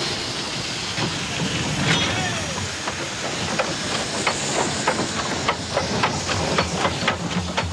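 Nilgiri Mountain Railway steam locomotive hissing steam, with metallic clanks from its wheels and rods that begin about three and a half seconds in and quicken to several a second.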